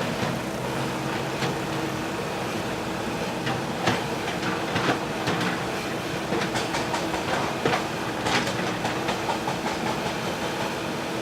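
JCB 3DX backhoe loader's diesel engine running steadily under work, with scattered sharp metal clanks from the machine, the loudest about four and eight seconds in.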